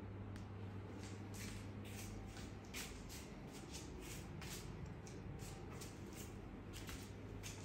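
Soft, irregular shuffling steps and rustles over a steady low hum in a quiet room.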